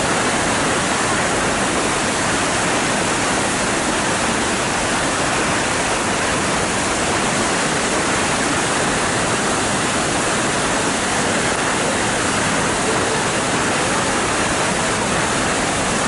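A waterfall pouring down into its plunge pool, a loud, steady, unbroken rush of water.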